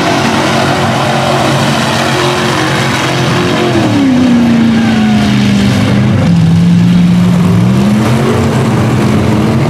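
Lifted mud truck's engine running hard as the truck churns through deep mud with its tyres spinning; the engine note drops about four seconds in and climbs again near the end.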